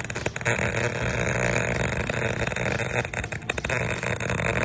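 MIG welding arc running continuously, with a dense, irregular crackle and spatter. The shielding gas, a 75/25 argon–CO2 mix, is contaminated, and the arc can already be heard to sound off; the weld comes out porous.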